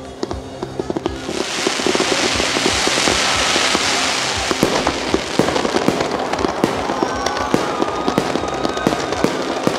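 Fireworks going off: rapid bangs and crackling throughout, with a dense hiss building about a second in and easing off in the second half.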